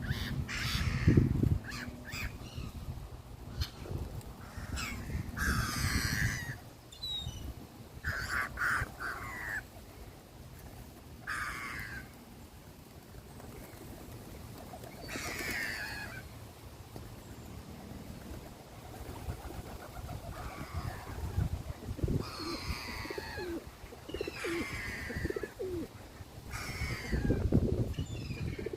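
Birds chirping: short downward-sweeping calls repeated every second or two, some with lower cooing-like notes among them. A loud low rumble comes about a second in and again near the end.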